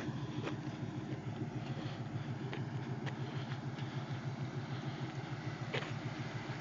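V8 engine idling with an even, steady low pulse, with a few faint clicks.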